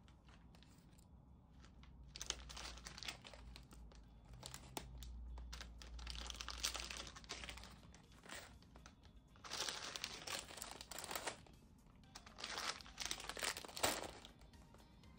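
Thin clear plastic bags packed with tiny plastic building bricks crinkling as they are handled and set down, in about four bursts of a couple of seconds each.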